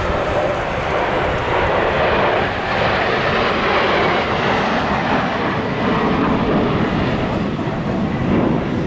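Jet noise from the Patrouille de France's Alpha Jet trainers in flight, a loud even roar that swells over the first couple of seconds and then holds.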